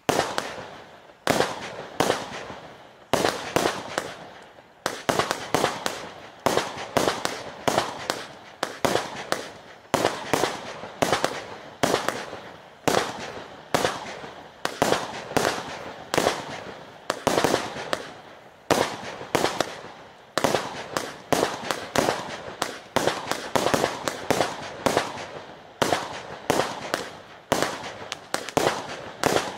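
A 50-shot, 20 mm consumer firework battery (Nico Pyro Sensation) firing shot after shot, at roughly one a second. Each shot is a sharp report trailed by fainter crackling as it fades.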